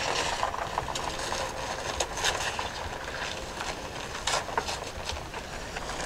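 Scattered knocks and scrapes of hand work, over a steady low rumble.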